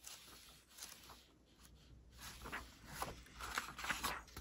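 Paper pages of a hardcover book being turned by hand: soft rustles, coming more often in the last couple of seconds.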